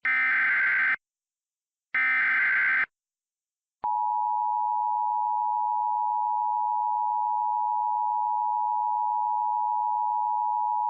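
Emergency Alert System tornado-warning alert: two roughly one-second bursts of SAME header data tones, about two seconds apart, then the steady two-tone EAS attention signal starts about four seconds in and holds.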